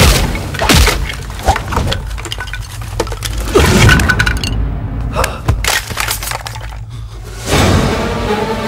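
Fight-scene sound effects from an action film: a string of sharp hits and cracks, some with a breaking, shattering sound.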